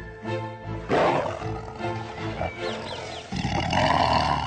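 Dramatic background music over a tiger's roar, a rough snarl that swells in the last second or so as it lunges. A sudden loud rush of sound comes about a second in.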